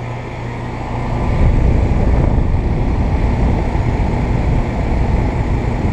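Trane XR14 5-ton central air conditioner outdoor unit running with a steady hum. A louder low rumble builds about a second in.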